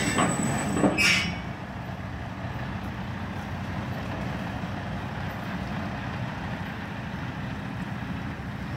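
Lumber delivery truck with a tilting roller-bed trailer, its engine running steadily with a low rumble. There is a short, sharp burst of noise about a second in.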